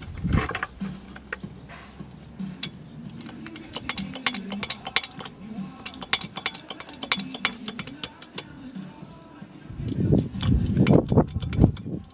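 Hydraulic bottle jack worked by hand in a motorcycle lift stand, giving many sharp irregular metal clicks and clinks as its ram raises the bike, with a louder low rumble about ten seconds in.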